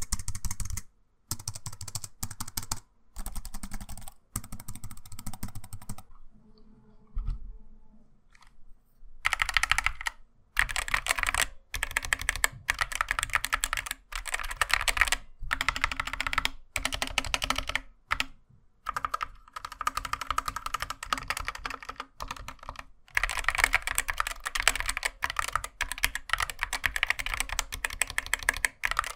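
Typing on a slim low-profile Jelly Comb wireless keyboard, soft clacking keystrokes, for the first several seconds. After a short lull, from about nine seconds in, louder and brighter fast typing on a 60% mechanical keyboard with Gateron optical red linear switches.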